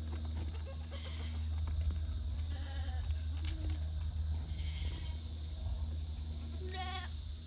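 Goats bleating a few times, the clearest a short, wavering bleat near the end, over a steady low rumble.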